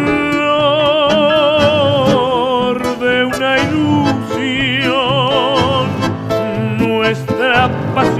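A tango song: a singer holds long notes with wide vibrato over the accompaniment, two long held phrases with a short break between them.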